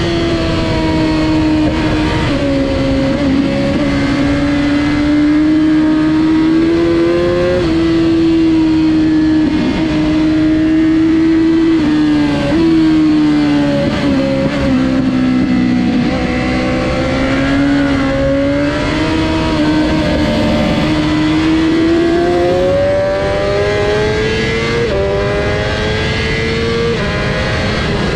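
Honda CBR1000RR-R Fireblade's inline-four engine at racing speed, pitch climbing under acceleration and sagging through corners, with sudden jumps in pitch as the rider shifts gears.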